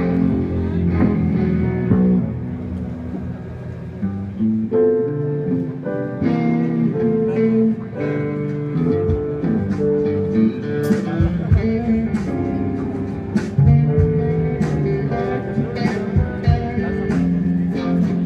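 Live rock band playing a guitar-led song at a sound check, with sharp percussive hits coming in about six seconds in.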